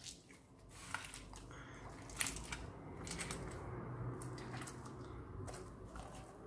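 Homemade slime being kneaded and squeezed in the hands: quiet squishing with a few small clicks and pops, the sharpest about two seconds in.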